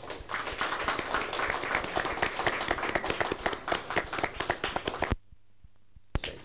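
Applause: many people clapping together, cut off abruptly about five seconds in.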